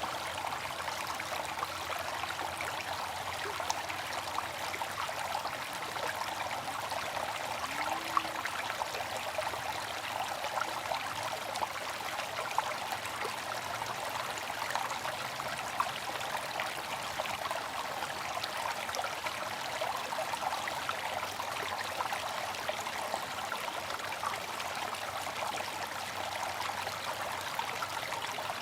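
Bamboo water fountain: water running steadily from the bamboo spout in an even trickling splash, with a few brief louder drips.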